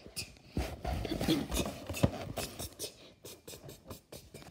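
Handling noise from a Funko Pop vinyl figure box in someone's hands: cardboard and its clear plastic window rubbing and scraping, with light clicks and dull knocks, the sharpest about two seconds in.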